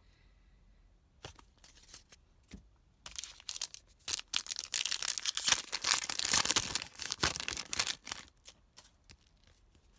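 Plastic-foil wrapper of a trading-card pack being torn open and crinkled. A few light clicks come first, then a dense stretch of tearing and crinkling from about three seconds in to about eight seconds in.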